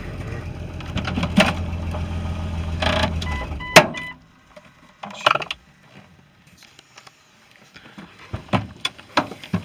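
2001 Jeep Cherokee engine idling with a steady low drone, carrying a knock that the owner puts down to a flex plate missing a bolt. It is shut off a little under four seconds in with a sharp click, leaving a few faint clicks and knocks.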